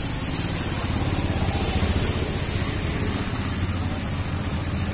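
Motorcycle and scooter engines running, a steady low hum with a constant hiss over it.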